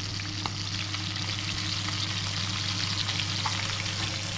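Fish frying in a pan of hot oil: a steady sizzle with scattered crackles, over a low steady hum.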